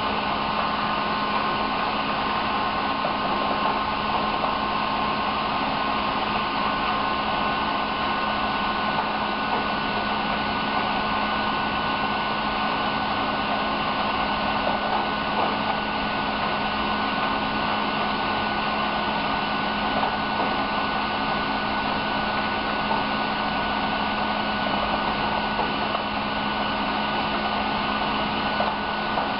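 A steady electric motor whir with a constant hum through it, like a blower or fan running without a break.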